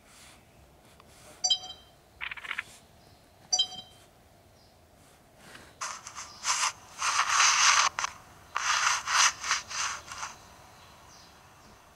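Sony HDR-CX580 camcorder's touch panel beeping twice, short electronic confirmation beeps as on-screen buttons are pressed. From about six seconds in come several seconds of irregular scraping and rubbing noises.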